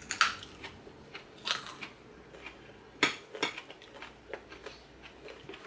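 Forks clinking and scraping against ceramic dinner plates, a few short separate clicks and scrapes spread over several seconds.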